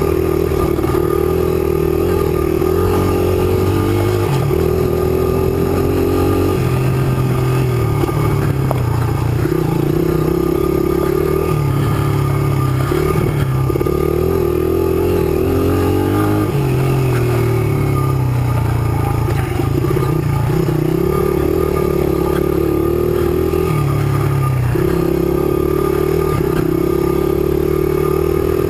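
Honda 100cc trail bike's single-cylinder four-stroke engine running under load, its revs rising and falling every second or two as the throttle is worked along the trail.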